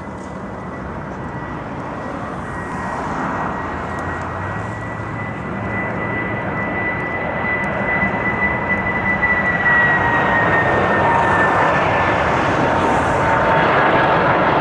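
Boeing 747 freighter on final approach, the noise of its jet engines growing steadily louder as it nears. A thin high whine runs through it and dips slightly in pitch after about ten seconds.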